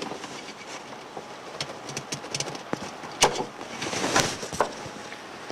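Scattered small clicks, knocks and rustling of a clear plastic hose being released from a push-in fitting on a gauge, with a wrench pressing back the fitting's green release ring. There is a sharp click about three seconds in, then a short burst of scraping.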